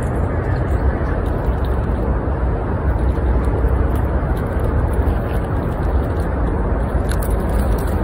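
Steady outdoor rumble with a hiss over it, deepest and strongest in the low bass, with no clear separate events.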